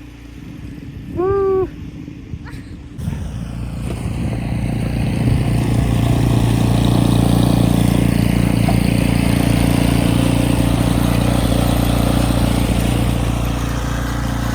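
An engine running steadily with a low hum, joined after about three seconds by a loud, even rushing noise that swells and stays. A short pitched call is heard about a second in.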